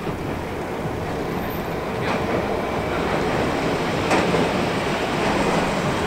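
Vintage Milan Class 1500 ('Ventotto') tram running along street track as it approaches, growing louder, with two sharp clicks from the track about two and four seconds in.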